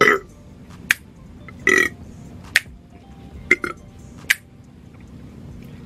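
A woman burping loudly: a long burp that falls in pitch right at the start and a shorter one about two seconds in, with short sharp clicks in between, over steady background music.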